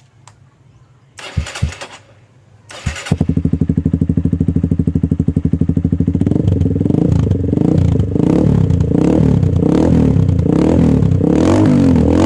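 Honda CRF150L single-cylinder four-stroke engine, breathing through an aftermarket Villain black carbon muffler, starting after two short noises about three seconds in. It settles into an even idle, then is revved up and down repeatedly in the second half.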